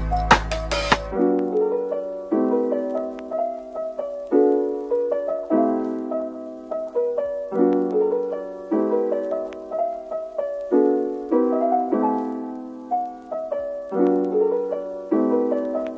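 Background music: a soft piano tune of repeating notes that each sound and fade away. A beat with sharp drum hits underneath stops about a second in.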